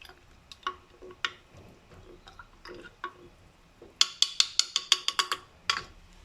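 A spoon stirring a honey, lemon and turmeric drink in a glass, clicking against the glass: a few separate taps, then a quick run of about ten clicks about four seconds in.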